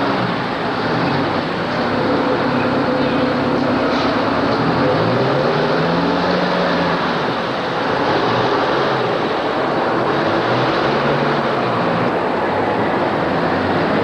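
Downtown street traffic: engines of passing cars and a city bus rising and falling in pitch over a steady rumble of traffic noise.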